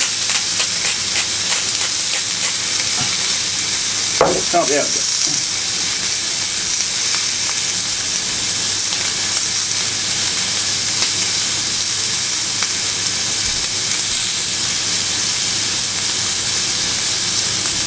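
Fillet steaks searing on a very hot ridged griddle pan, a steady loud sizzle.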